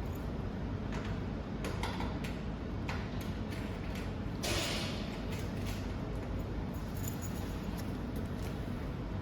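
Light clicks and clatter of cables and fittings being handled on a wire feeder, with one short louder scrape about halfway through, over a steady low hum.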